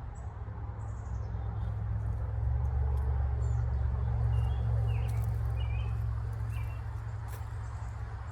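Songbirds chirping in short, scattered calls, over a low rumble that swells in the middle and then fades.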